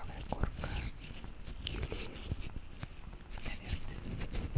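Close-miked ASMR scratching: irregular, crackly scratches and small crunches.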